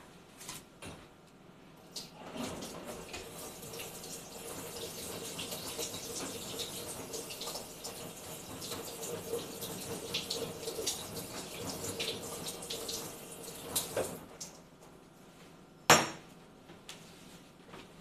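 Kitchen tap running as a kitchen knife is rinsed at the sink, with small clinks, starting about two seconds in and stopping a few seconds before the end. A single sharp knock follows.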